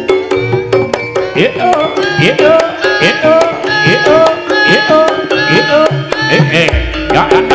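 Live jaranan music: a gamelan-style ensemble with hand-played kendang drums, many strokes gliding up in pitch, over ringing pitched metal notes in a steady rhythm. A deep gong-like note enters near the end.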